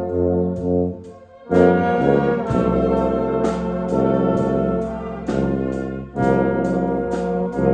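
Student concert band playing brass chords over low sustained tuba notes, with an evenly spaced high percussion tick. The band breaks off briefly about a second in, then comes back in loud, and drops again for a moment near the end.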